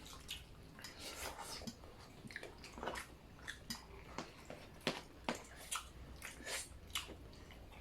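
Close-miked eating sounds: irregular wet mouth clicks and smacks of someone chewing a mouthful of sautéed vegetables and rice.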